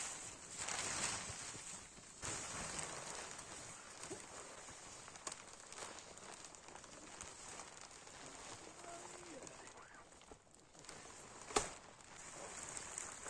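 Faint rustling of tent fabric as a pop-up tent is unfolded and set up, loudest in the first couple of seconds, with a single sharp click near the end.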